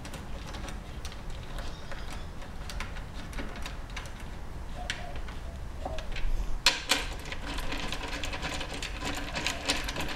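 Light metallic clicks and rattles of bolts being turned in by hand on a Toyota Prius hybrid battery pack's end plate, growing denser and louder about two-thirds of the way in.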